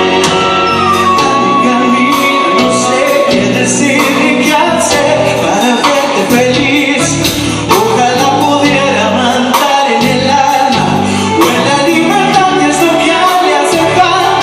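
Symphony orchestra and band playing a pop ballad live, with a singer's voice over it and regular drum beats. A long held high note comes in about half a second in and lasts about three seconds.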